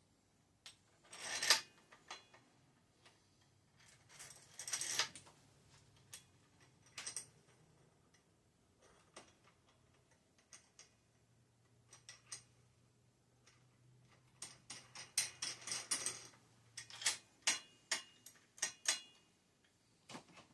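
Metal headset parts and a headset cup press being handled: scattered clinks and clicks with a few short scraping bursts, and a quick run of clicks near the end.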